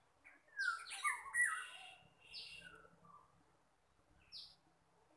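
Small birds chirping: a cluster of quick, downward-sliding chirps in the first two seconds, a few more around the middle and a single one near the end.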